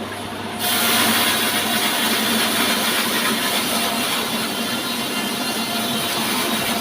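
Horizontal band sawmill running, with a steady low hum; its sound turns suddenly louder and higher-pitched about half a second in and stays there.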